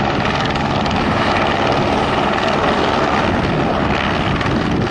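Firefighting helicopter hovering low, its rotor and turbine running in a loud, steady chop.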